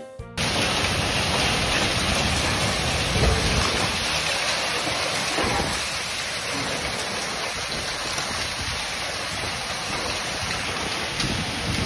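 Heavy rainstorm pouring down on a paved lane, a dense steady rushing hiss that comes in suddenly just as a short bit of music cuts off.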